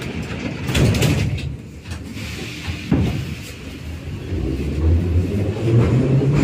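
Metro car's sliding doors closing, shutting with a knock about three seconds in. Then the train's traction motors start up with a low hum and a steadily rising whine as it pulls away.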